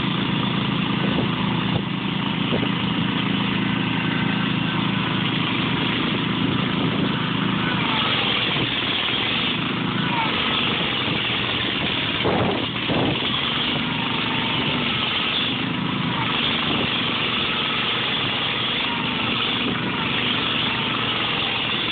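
Engines of two garden tractors, a John Deere 314 and an Ariens, running steadily under load as they pull against each other in a tractor pull.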